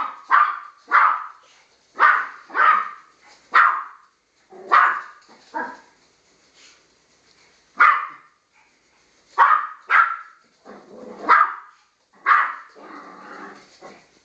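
Yorkshire terrier barking at a moving laser dot: about a dozen short, sharp yaps at uneven intervals, with a longer, rougher sound after the last bark near the end.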